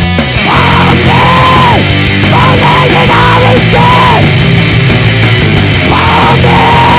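Heavy metal music: a band's instrumental passage, with a high melody line held in long notes over a dense, steady backing.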